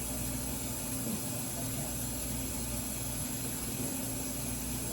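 A steady hiss with a faint low hum underneath, unchanging throughout.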